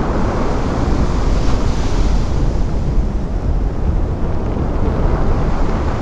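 Giant ocean waves breaking and whitewater washing, a steady heavy rumble with wind buffeting the microphone; a brighter rush of hiss swells briefly about a second and a half in.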